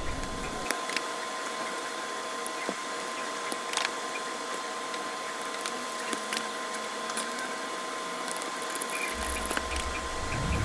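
Hand-sewing by needle and thread through a plastic snapback strap and cap fabric: scattered small clicks and light rustling of fingers, needle and thread. These sit over a steady background hiss with a faint steady tone.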